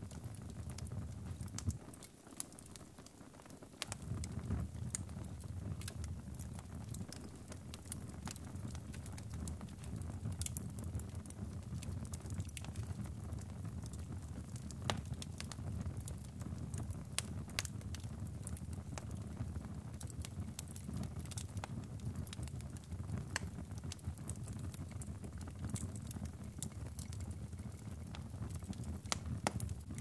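Wood fire burning in a fireplace: a steady low rumble of flames with frequent sharp crackles and pops. The low rumble drops away for about two seconds, starting around two seconds in.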